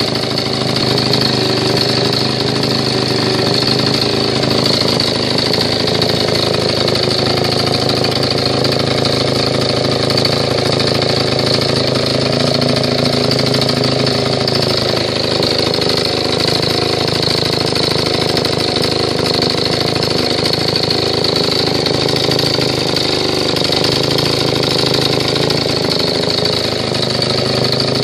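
Vintage J.A.P. stationary engine running steadily, driving its water pump, its speed wavering slightly partway through.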